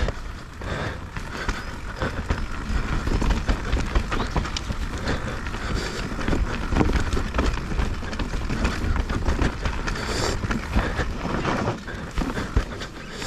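Mountain bike riding down a rough trail: tyres rolling over dirt and roots, with a steady run of knocks and rattles from the bike.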